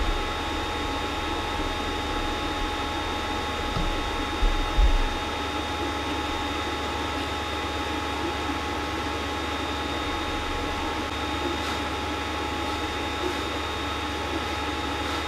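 Creality CR-10S Pro 3D printer running near the end of a print: a steady hum of fans and motors with several steady high tones. A brief low thump about five seconds in.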